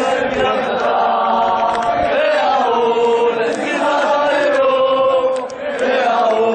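Many men's voices chanting a football supporters' song in unison, loud and without a break.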